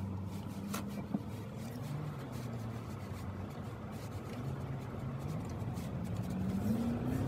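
Car engine heard from inside the cabin, running with a steady low hum that climbs in pitch over the last couple of seconds as the car speeds up. A couple of light clicks come about a second in.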